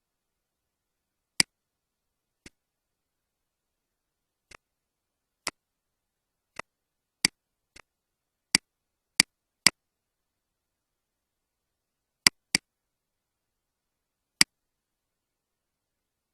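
Computer mouse buttons clicking about a dozen times at irregular intervals, some clicks in quick pairs, with silence between them.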